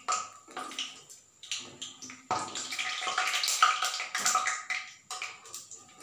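Urad dal vadas sizzling and crackling in hot frying oil, loudest from about two to five seconds in, as a wire-mesh skimmer stirs and lifts them. Sharp clicks of the skimmer against the pan are heard throughout.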